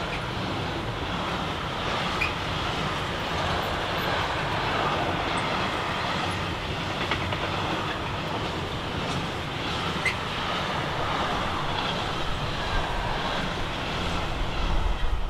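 Intermodal freight wagons carrying swap bodies and semi-trailers rolling past: a steady rumble and rush of steel wheels on rail, with a few faint clicks and a few brief high wheel squeaks.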